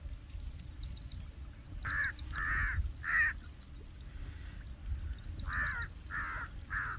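Crow cawing in two runs of three caws, the first about two seconds in and the second near the end, over a steady low rumble.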